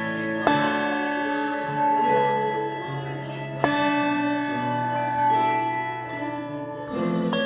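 Handbell choir ringing a piece of music: chords of sustained, bright bell tones, with a new chord struck about every three seconds and each left to ring on.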